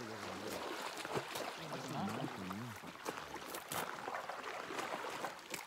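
Faint, indistinct voices in short snatches over a steady background hiss, with a few sharp clicks.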